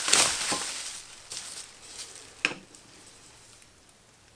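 Old steel chisels being handled: a rustle in the first second, then a sharp clink of metal about halfway through, fading to quiet handling.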